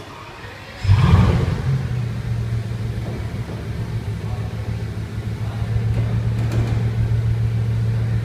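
Bugatti Veyron Grand Sport Vitesse's quad-turbocharged W16 engine starting up about a second in, its revs flaring and falling back within a second to a steady idle.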